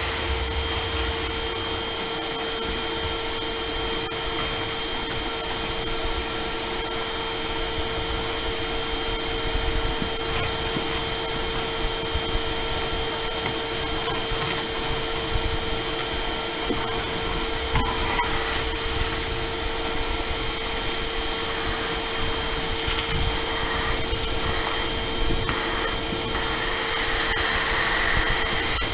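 Porter-Cable shop vacuum running steadily with a constant whine, sucking dirt and debris up through its hose from a boat's floor.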